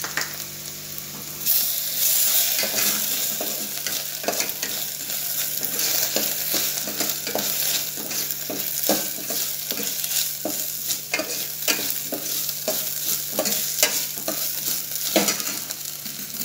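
Onions, green chillies and ginger-garlic paste sizzling in hot oil in a steel pot, with a steel spatula scraping and clinking against the pot as it is stirred. The sizzle grows louder about a second and a half in.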